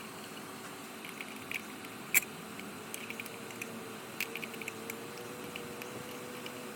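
Scattered light clicks and taps, one sharper click about two seconds in, over a steady hiss, with a faint hum coming in about halfway through.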